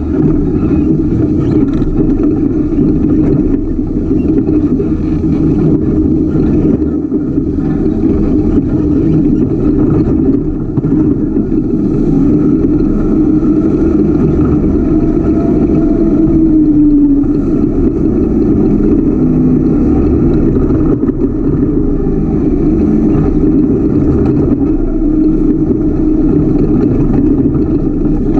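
Ultra4 off-road race car's engine running continuously under load as it drives a rough trail, heard on board, with a brief change in engine pitch a little past the middle.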